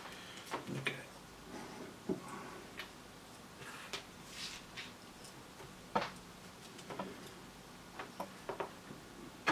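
Scattered small clicks and taps from hand work with a soldering iron and a small circuit board held in a helping-hands clamp, irregular and a second or more apart.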